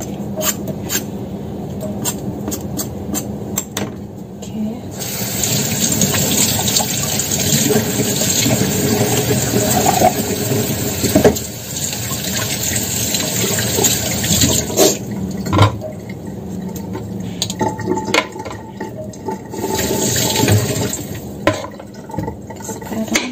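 Kitchen tap water running into a sink, starting about five seconds in and running for about ten seconds, with a shorter run near the end. Before the water comes a quick series of scraping strokes, a few a second.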